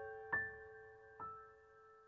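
Slow, soft piano music: a note is struck about a third of a second in and another just over a second in, each ringing on and fading away.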